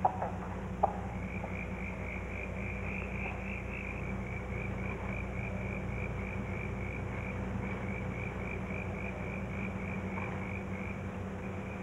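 A night animal calling: a steady run of short, high, evenly spaced chirps, about four a second, over a low hum. There are a couple of faint clicks near the start.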